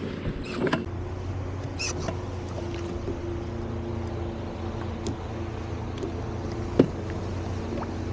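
Personal watercraft (jet ski) engine idling steadily, with scattered light clicks and one sharp knock about seven seconds in.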